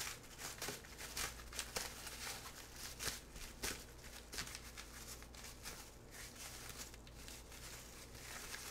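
Bubble wrap crinkling and rustling faintly as hands unwrap it from a package, in many small irregular crackles.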